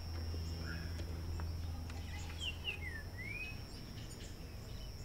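Outdoor ambience: a steady low rumble under a thin steady high tone, with a few short bird chirps that fall and rise in pitch about halfway through.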